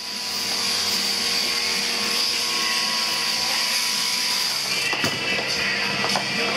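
Steady high whir of electric sheep-shearing handpieces and their overhead drive gear on the shearing board, with music starting to come in about five seconds in.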